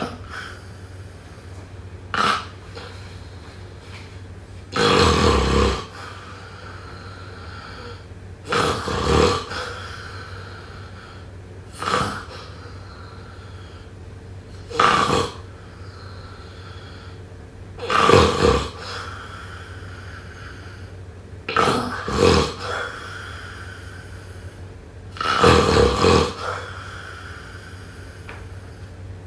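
A person snoring, with about nine loud snores every three to four seconds, some brief and some about a second long, over a steady low hum.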